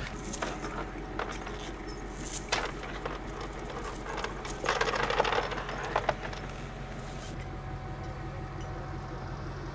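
Metal parts clinking and rattling: a few separate clinks, then a cluster of rattling a little before the middle, over a steady low engine hum.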